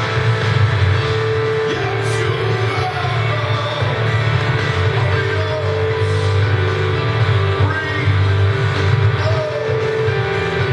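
Live church band music playing steadily and loudly, sustained chords with no break.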